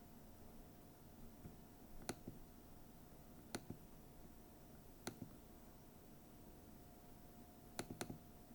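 Faint, sharp clicks of a computer mouse, one about every second and a half, with a quick double click near the end, over a faint steady hum.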